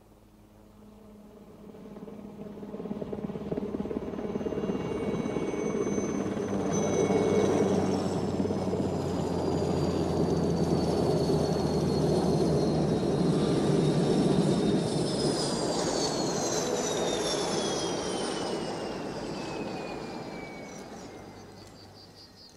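Helicopter sound effect: a steady rotor-and-engine noise that swells up over several seconds, holds, then fades away. Over the second half a high whine slides down in pitch as the helicopter comes down to land.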